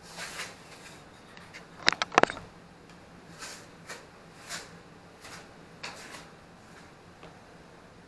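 Handling noise from a small plastic toy drone and its packaging: a quick cluster of sharp plastic clicks about two seconds in, then a few soft rustles and taps.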